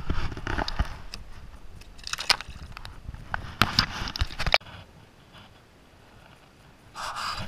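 Handling noise from a freshly caught sea bass being held and let go by hand: irregular knocks, rubbing and crackling, which stop suddenly about four and a half seconds in. A short rustle follows near the end.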